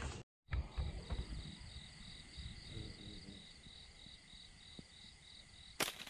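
Night insects calling, a cricket-like chirp pulsing steadily about three times a second over a faint continuous high hum. A single sharp snap comes near the end.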